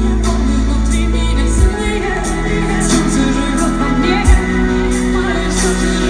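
Live pop band playing an instrumental passage through a concert PA, heard from the crowd: a steady beat with deep bass notes that change every second or two and regular cymbal strokes.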